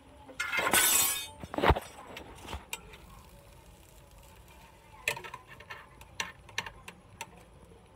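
Kitchen handling sounds at an open electric sandwich maker: a brief loud scraping rush about half a second in and a sharp knock, then a run of light clicks and taps as a plastic spatula lifts the toasted sandwiches from the hot plates.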